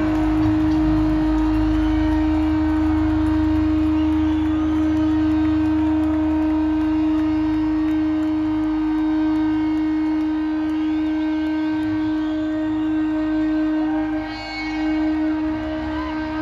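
A live rock band's amplified sound holding one steady droning note through the PA, with a low rumble beneath it that thins out about a third of the way in, as the song rings out.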